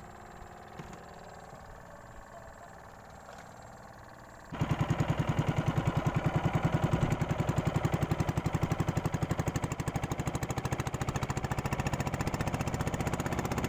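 Small stern-mounted engine of a wooden fishing boat running under way, with a fast, even pulsing beat. It starts suddenly about four and a half seconds in, after a quieter stretch with a few light clicks.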